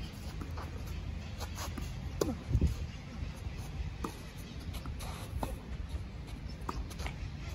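Tennis ball struck by rackets and bouncing on the clay court, heard as sharp pocks about a second and a bit apart, over steady low background noise. A brief falling-pitched sound, louder than the rest, comes about two seconds in.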